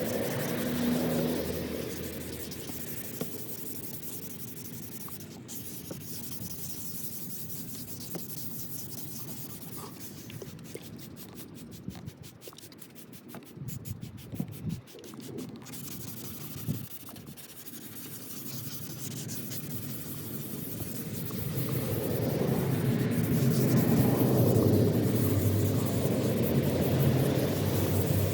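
Sandpaper rubbing and scraping over a plastic headlight lens as it is sanded, growing louder over the last several seconds.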